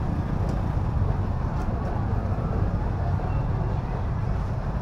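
Outdoor market ambience: a steady low rumble with a few faint clicks.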